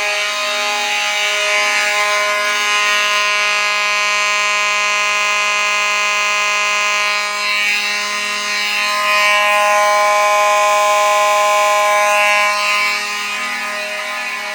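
Fire alarm horns, an Edwards 892 and 7002Ts among them, sounding together on a continuous signal: one steady, unbroken tone. It shifts a little in level about halfway through and again near the end.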